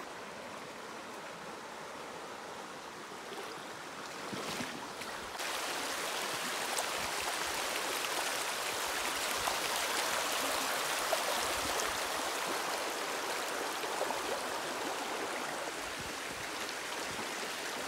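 Shallow, fast stream running over a rocky riffle: a steady rushing of water that becomes louder and brighter about five seconds in.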